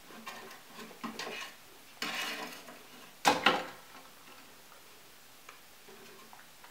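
A cat scrambling about inside a wooden cat house, its paws scuffing and scratching on the wooden floorboards. A little over three seconds in there are two sharp knocks, the loudest sound.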